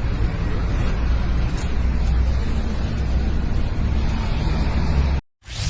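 Steady outdoor street noise, likely passing traffic, with a heavy low rumble. It cuts off abruptly near the end, and a short whooshing noise follows.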